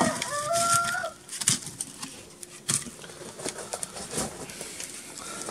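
A log being fed into the firebox of a wood-burning stove: scattered knocks and clicks as the wood is pushed against the brick and embers. A brief bird call sounds near the start.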